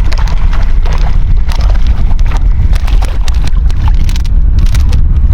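Wind buffeting the microphone with a loud, steady low rumble, with scattered short clicks and knocks over it.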